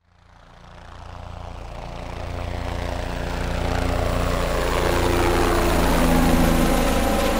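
An engine running steadily with a low, fast pulsing, fading in from silence and growing louder over the first few seconds.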